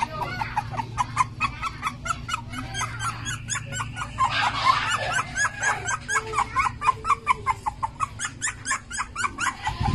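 Several Jack Russell terrier puppies yipping and whimpering, short high calls coming several a second and overlapping.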